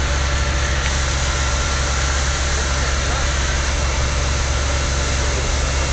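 A vehicle engine idling steadily, a low, even rumble.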